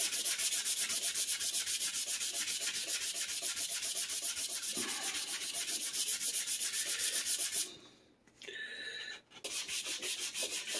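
Hand-sanding a wooden Telecaster guitar body with a round sandpaper disc on a knob-handled pad: quick, rhythmic rasping strokes that smooth down a tear-out patch filled with glue and sawdust. The strokes stop for about a second and a half three-quarters of the way through, then start again.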